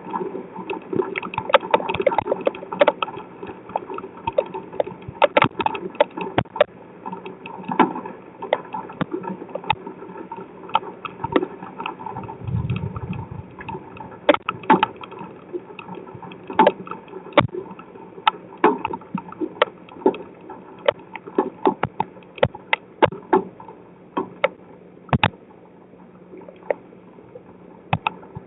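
Rain drops striking an outdoor security camera over a steady hiss of rain, a dense flurry of sharp taps at first that thins to scattered drops later. A short low rumble comes about twelve seconds in.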